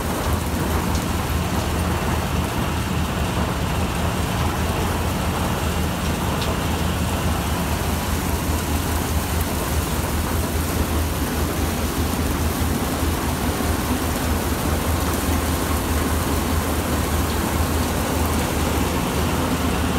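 Harvested olives pouring steadily into a steel reception hopper, a continuous rain-like rush, over the low, steady hum of olive-mill machinery.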